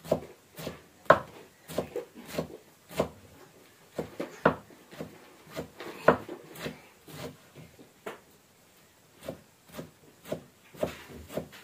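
Kitchen knife chopping leafy green stalks on a thick round wooden chopping block: irregular knocks of the blade on the wood, about one to two a second, with a pause of about two seconds past the middle.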